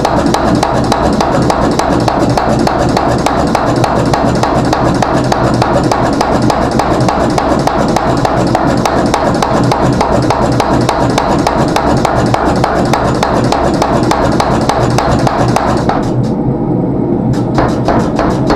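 Power hammer pounding a hot meteorite Damascus billet with rapid, steady blows over a low running hum. The blows stop for about a second near the end, then start again.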